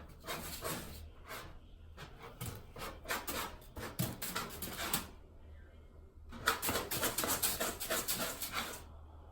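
A cat digging and scratching in bentonite cat litter: rapid, rhythmic scraping strokes in two bouts with a short pause between them.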